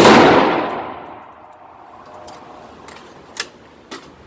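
A single AR-15 rifle shot whose echo rings down over about a second and a half. Two small clicks follow near the end.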